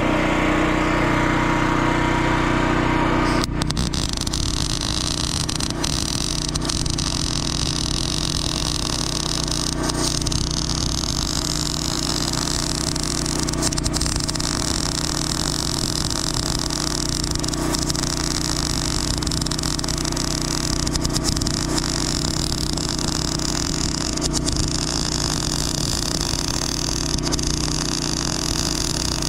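Wire-feed welder arc running steadily while a joint on a steel pipe fence panel is welded; it starts about three and a half seconds in. An engine runs steadily underneath throughout.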